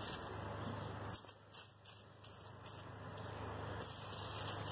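Quiet room tone: a low steady hum, with a few faint brief rustles in the first half.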